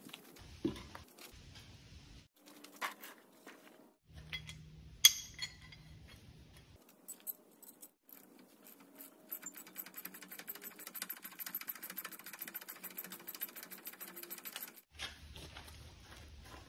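Metal tools clinking and knocking, the loudest a sharp knock about five seconds in, then a ratchet wrench clicking in a fast, even run for about five seconds as a mini excavator's track roller is being taken off.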